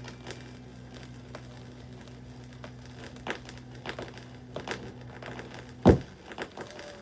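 Stylus riding the run-out groove of a 7-inch vinyl single on a Technics turntable after the song has ended: a low steady hum with faint surface crackle and a few scattered clicks. About six seconds in there is a single loud thump, and the hum stops.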